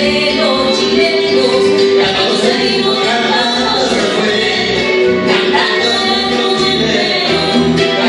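A man and a woman singing a duet through microphones over amplified instrumental backing music.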